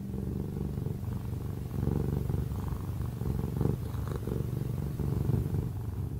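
A domestic cat purring steadily: a low rumble with slight swells in loudness.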